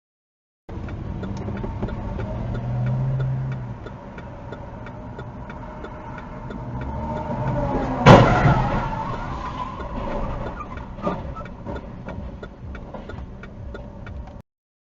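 Car interior and road noise with a steady, even ticking. About eight seconds in a single loud crash of impact, the loudest moment, rings and rattles on for a second or two, with a smaller knock a few seconds later.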